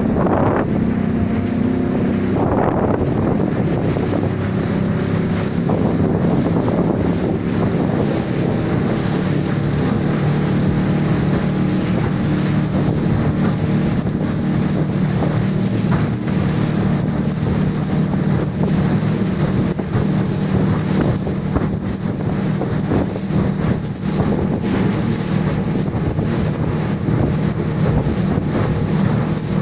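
The motor of a 4.8 m river sled boat running steadily at cruising speed through choppy water, with wind buffeting the microphone.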